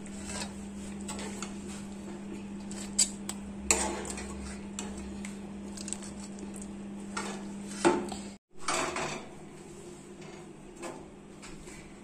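Metal pot, serving spoon and dishes clinking and clattering as cooked curry is dished out, with a few sharp knocks among them. Under it runs a steady low hum that stops about eight seconds in.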